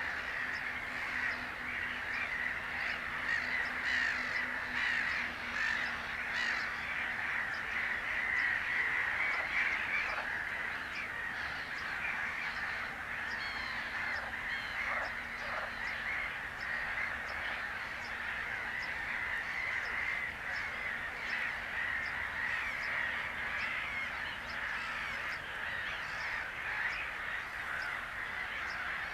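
A dense, continuous chorus of many birds calling, with a steady chatter and many quick chirps over it.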